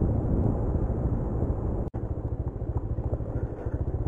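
TVS Raider 125's single-cylinder engine running on the move, heard from on the motorcycle with a steady low wind rumble on the microphone. The sound drops out for an instant about two seconds in.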